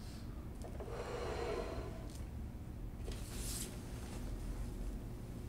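Quiet room hum with a woman's breathing: a soft breath about a second in and a short, sharp sniff about three seconds in, as she holds back tears.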